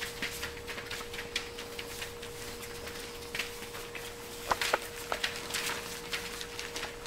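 Five-week-old Pointer puppies' paws pattering and scuffling on paper sheets over the floor, with scattered light clicks and rustles. Two sharper clicks come a little past the middle, and a faint steady hum sits underneath.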